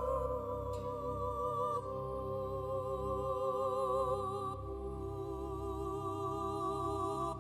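Slow background music: a melody of long held notes with a wavering vibrato over a low sustained bass, the note changing twice.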